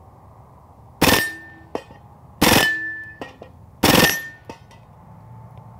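Hatsan Blitz .30-calibre PCP air rifle firing three short full-auto bursts about a second and a half apart. Each burst is followed by steel targets clanging and ringing, with a few smaller clanks as poppers go down.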